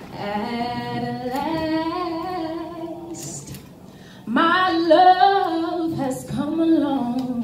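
A woman singing solo and unaccompanied into a handheld microphone: long held notes in two phrases, with a short breath about three seconds in.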